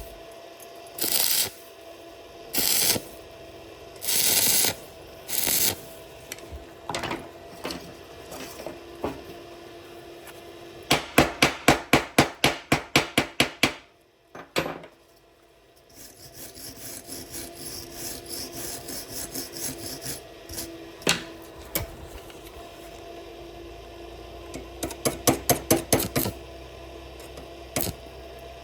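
Metalworking on steel: several short scraping strokes, then a fast run of sharp knocks at about six a second lasting some three seconds. A steadier faint buzz and a few more short runs of knocks follow.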